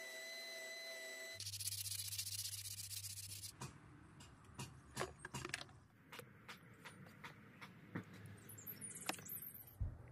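Spindle sander motor running with a steady hum, which cuts off about a second in. Then comes about two seconds of loud hiss, followed by a run of irregular clicks and taps.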